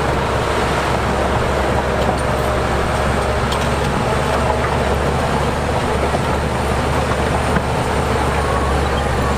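Heavy diesel earthmoving machinery running steadily, with a constant low engine drone.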